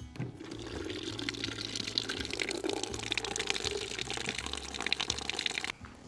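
Water running from the spigot of a plastic water jug into a collapsible camping sink bin, filling it with cold rinse water. The pour stops suddenly near the end.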